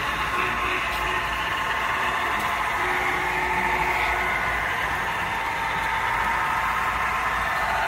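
Model steam locomotive running along its track: a steady whir of its electric motor and wheels on the rails.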